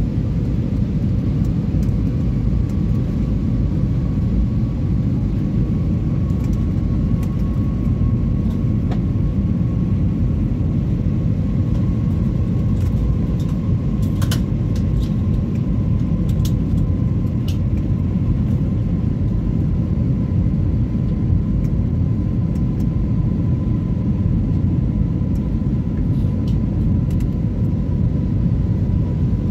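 Jet airliner cabin noise heard from a window seat during the descent to land: a steady low rumble of the engines and airflow, with a faint high whine running over it.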